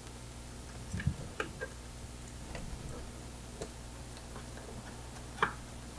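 Scattered clicks and taps of a DB25 cable connector being handled and seated into a Gecko G540 stepper motor drive, with a low thump about a second in and the loudest click near the end. A faint steady low hum runs underneath.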